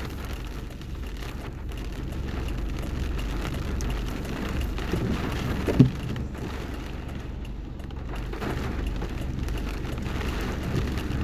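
Rain pattering steadily on a stationary car, heard from inside the cabin over a low idling rumble, with a short thump about six seconds in.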